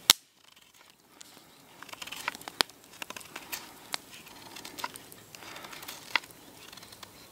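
Knife blade shaving green hornbeam wood to square the end of a stick: soft rasping strokes with scattered small sharp clicks, the loudest click right at the start.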